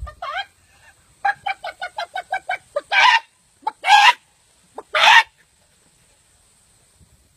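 Chicken clucking: a quick run of about ten short clucks, followed by three loud squawks about a second apart.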